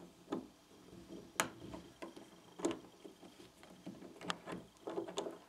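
Quiet, irregular clicks and ticks of a Phillips screwdriver working out the small screws that hold the lower guide pad on a timing-chain tensioner, metal tool on metal and plastic parts.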